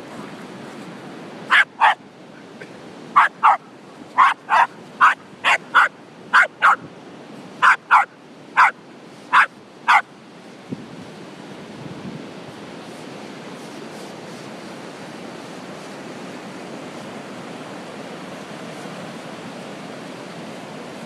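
A small terrier barks sharply about sixteen times, often in quick pairs, and stops about ten seconds in. Steady surf and wind noise fill the rest.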